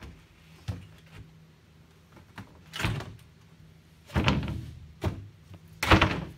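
Plywood panel knocking and thudding against the wooden frame of an aquarium stand as it is worked down into place, in several separate knocks, the loudest two coming about four seconds in and near the end.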